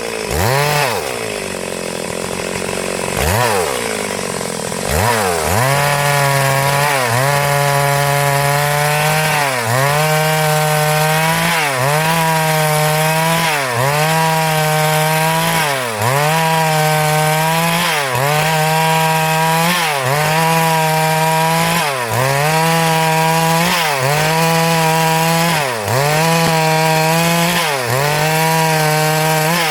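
Stihl MS382 two-stroke chainsaw ripping lengthwise through a hardwood log. For the first few seconds it runs unevenly at a lower pitch. It then settles into a steady high pitch under load, the engine dipping briefly and recovering about every two seconds.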